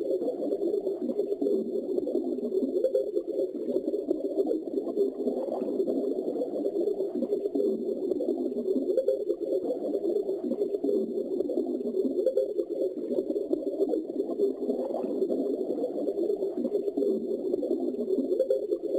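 Underwater ambience: a steady, muffled churning of water, with no high splashes.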